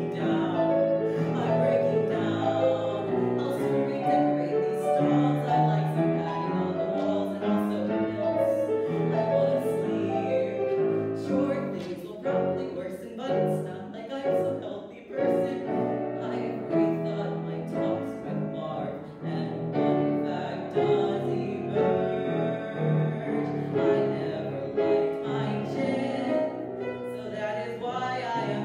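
Solo voice singing a musical-theatre song with grand piano accompaniment.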